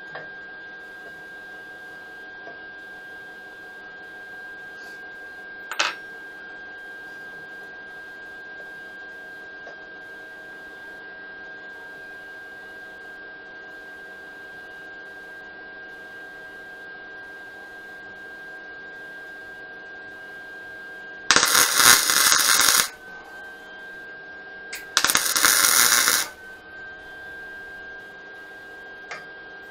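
An air-powered hand tool on a hose, likely an air ratchet or impact wrench, runs in two short hissing bursts about three seconds apart near the end, as it drives the bolts of the front brake caliper. A single sharp metal click comes earlier.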